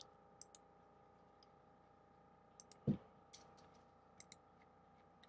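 Faint scattered clicks of a computer mouse, some in quick pairs, with one louder knock about three seconds in, over a faint steady hum.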